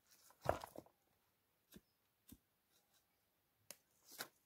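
Pieces of split firewood being set down and knocked against each other as a fire is laid: a short clatter about half a second in, then a few single knocks.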